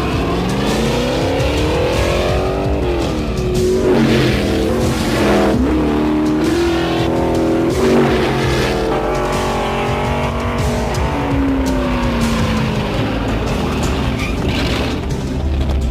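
NASCAR stock car engines racing at speed, the engine pitch rising and falling several times as they rev and ease off, over a trailer's music.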